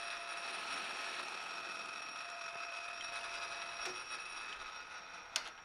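Metal lathe running with a steady whine and hiss while facing a disc, fading slightly; a sharp click near the end as it is switched off, and the running sound drops away.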